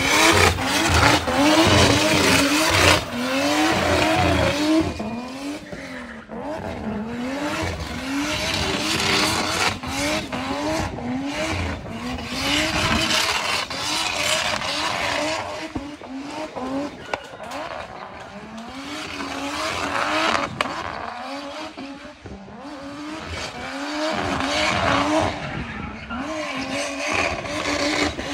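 Turbocharged BMW E36 with an M50 inline-six, drifting: the engine revs rise and fall again and again over tyres squealing and skidding in repeated bursts. It is loudest in the first few seconds.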